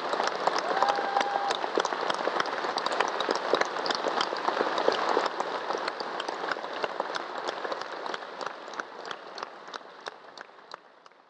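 Concert audience applauding, a dense patter of many hands clapping that fades out gradually over the second half.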